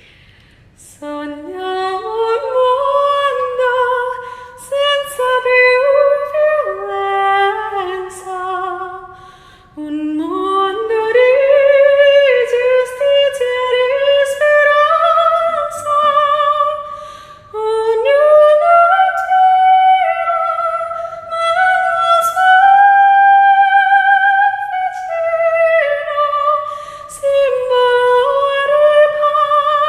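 A woman singing alone, with no accompaniment, in long held notes that glide and waver from one pitch to the next.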